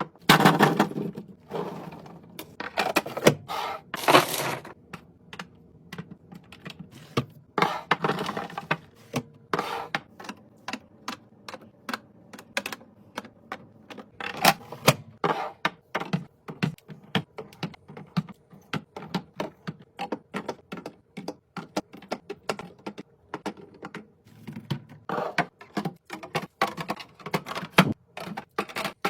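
Containers being set down and arranged in a fridge: a steady run of clicks, taps and knocks, with several short rushes of noise in between.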